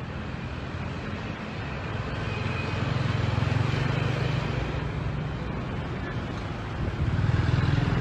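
A motor vehicle's engine running close by over general city street traffic noise, louder from about three seconds in and again near the end.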